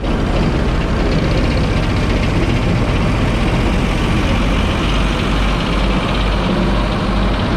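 Soil compactor's heavy diesel engine running steadily, with a deep rumble.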